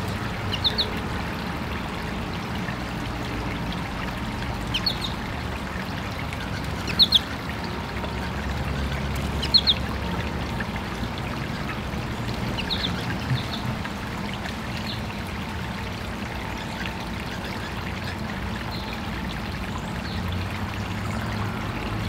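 Water trickling steadily through an artificial garden stream, over a low background rumble. Short high bird chip notes, mostly in pairs, cut through about five times in the first fourteen seconds.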